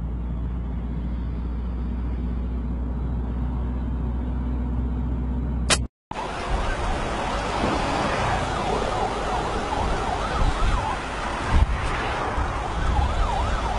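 A steady low rumble, broken by a brief dead gap about six seconds in, followed by louder rushing wind and road noise with some wavering tones near the end.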